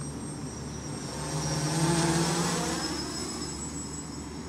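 Baby Widow Maker quadcopter's 1400kv brushless motors and propellers buzzing as it flies past overhead. The sound swells to a peak about two seconds in, then fades.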